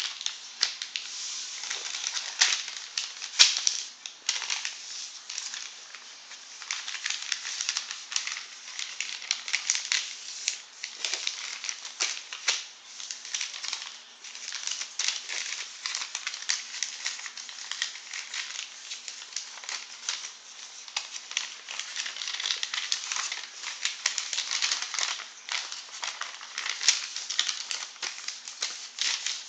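A sheet of paper rustling and crinkling as a child's hands fold it and press down the creases, with many quick crackles and taps against the surface underneath.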